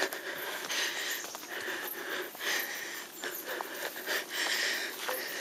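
A hiker breathing hard close to the microphone from brisk walking, quick even breaths at about two a second, with light footsteps on the trail between them.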